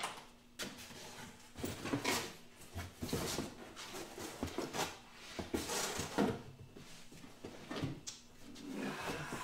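Someone rummaging through bags and gear: irregular rustling, with knocks and scrapes as things are moved around.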